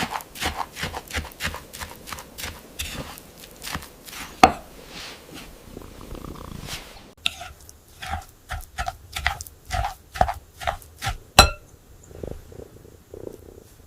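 Quick, irregular kitchen clicking and tapping during food preparation, several knocks a second, with one sharp ringing metallic clink about eleven seconds in.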